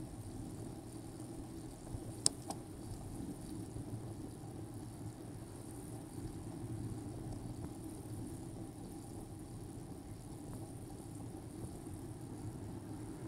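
Steady road and tyre noise of a moving bicycle with passing car traffic, picked up by a bike-mounted camera. A sharp click about two seconds in, with a lighter one just after.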